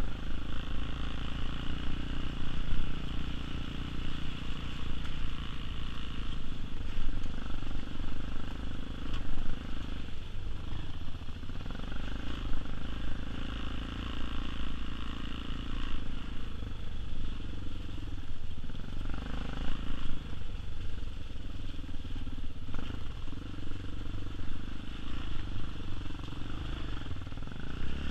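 TaoTao TBR7 dual-sport motorcycle's single-cylinder four-stroke engine running at low trail speed, the throttle easing off and back on a few times, with frequent short jolts and rattles as the bike rides over rough dirt and leaves.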